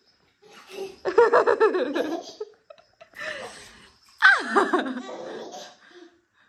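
A baby laughing in short bursts: a quick run of giggles about a second in, then a longer laugh that falls in pitch a little past four seconds.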